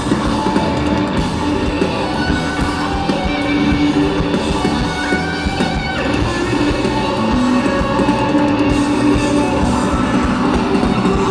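Live rock band playing an instrumental passage, electric guitar over bass and drums, recorded loud and steady from the audience.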